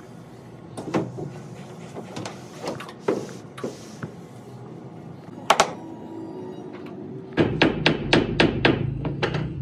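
A large MDF sheet handled onto a CNC router bed: scattered knocks and thuds of the board against the wooden bed blocks, with one sharp knock about halfway through. About seven seconds in, background music with a fast, even beat begins.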